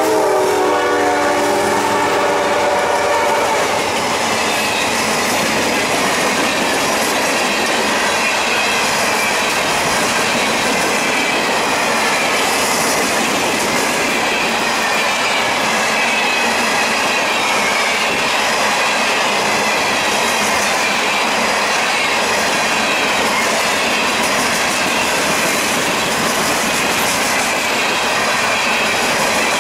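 Freight train horn from a CSX GE CW44AC fading and dropping in pitch as the locomotives pass close by. It gives way to empty hopper cars of a rock train rolling past in a steady clatter of wheels over the rails, with a high wavering wheel squeal through it.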